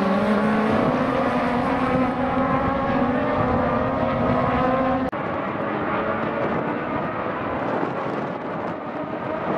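Race car engine running at high revs, its pitch sliding slowly down as the car pulls away through the corner. About halfway through it breaks off abruptly into the quieter sound of several race car engines further off around the circuit.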